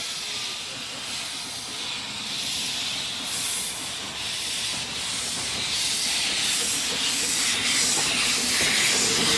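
Ffestiniog Railway double Fairlie steam locomotive Merddin Emrys on the move, its open cylinder drain cocks hissing steam. From about three seconds in, its exhaust beats come roughly twice a second and grow louder as it approaches.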